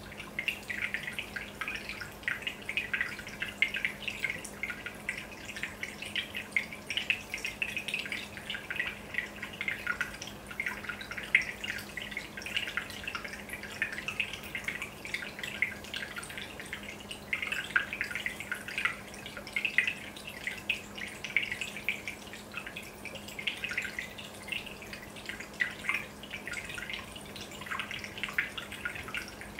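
Aquarium aeration bubbling: a stream of air bubbles rising through the tank water and breaking at the surface, a continuous irregular patter of small plops and drips. A steady low hum runs underneath.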